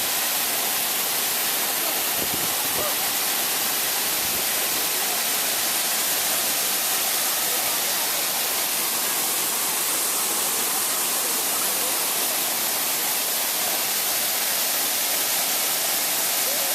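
Steady, even rush of falling water, a dense hiss with no change in level.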